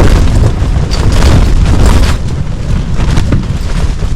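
Storm-force wind buffeting a rooftop tent: heavy low rumble of wind on the microphone with the tent fabric flapping and snapping in quick cracks. The gusts ease a little about halfway through.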